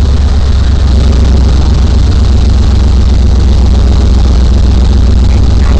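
Class 1450 off-road race vehicle's engine running steadily, heard loud and close with a heavy, deep rumble.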